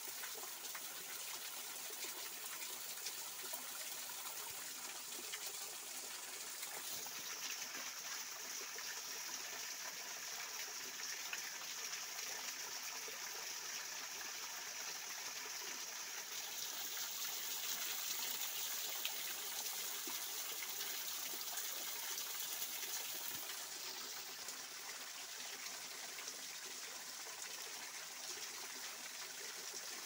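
Small waterfall spilling down a rock face onto stones and into a shallow pool: a steady splashing and rushing of falling water, a little louder about halfway through.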